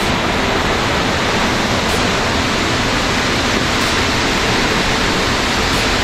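Swollen, muddy mountain stream in spate, its fast water rushing in a loud, steady hiss.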